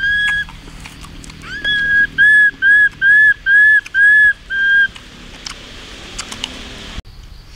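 A high whistle: one short note, then seven short notes in quick, even succession, each rising and falling slightly in pitch.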